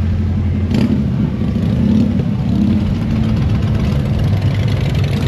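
Motorcycle engines running as bikes ride past, with a brief rise in revs about two seconds in. A short sharp crack is heard about a second in.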